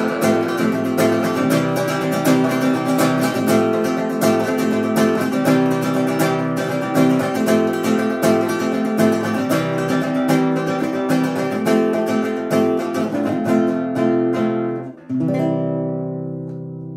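Acoustic guitar playing the instrumental ending of a song, steadily strummed, then a short break about fifteen seconds in and a final chord left to ring and fade.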